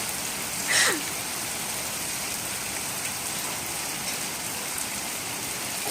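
Steady rain falling and pattering on surfaces. A little under a second in, a brief high squeal glides down in pitch.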